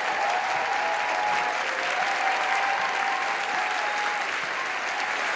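Audience applauding steadily, with a faint held tone or two underneath.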